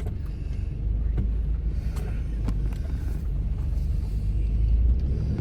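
A car's engine running, heard from inside the cabin as a steady low rumble, with a few faint ticks over it.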